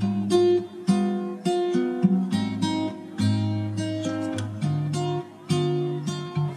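Background music: an acoustic guitar picking and strumming a melody, a new note or chord every half second or so.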